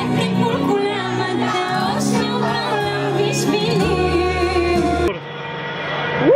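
Live pop band (electric guitars, bass, drums) playing with a woman singing, heard from within the audience. About five seconds in the music cuts off to a steadily rising rush of wind and ride noise on a roller coaster.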